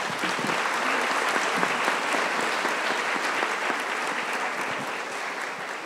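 Audience applauding, building quickly at the start and slowly dying away near the end.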